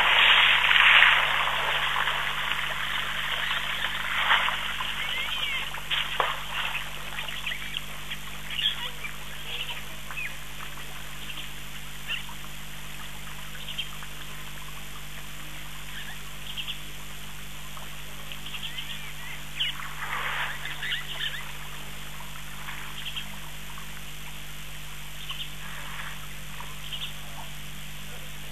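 Wild birds calling around a waterhole: short, scattered chirps and quacking calls, busiest in the first couple of seconds and again about two-thirds of the way through, over a steady low hum.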